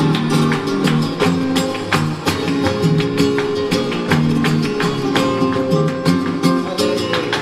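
Two flamenco guitars playing a tangos guitar passage together, picked melody over frequent sharp strummed attacks.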